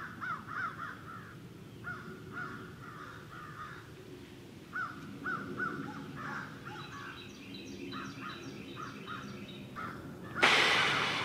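Fox squirrels barking: runs of short calls, about four a second, that stop and start, with higher-pitched calls joining in over them in the second half. Near the end a sudden loud rustling noise takes over.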